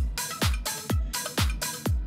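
Electronic dance music with a steady kick drum about twice a second and bright hi-hat hits between the beats.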